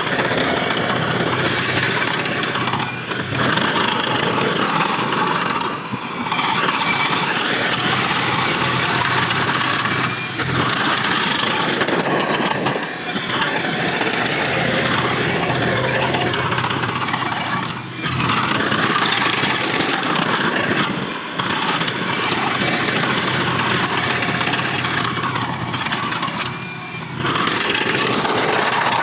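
Diesel engines of heavy earthmoving machinery running under load, a dense continuous noise that dips briefly every few seconds.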